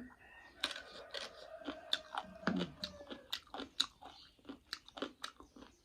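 Close-miked chewing: a person eating with many short crisp crunches and wet mouth clicks.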